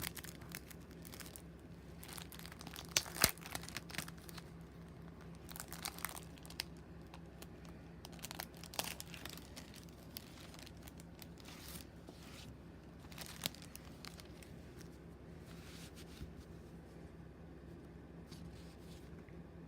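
Paper die-cuts and their plastic packaging being handled: intermittent crinkling and rustling with a few sharp clicks, over a faint steady hum.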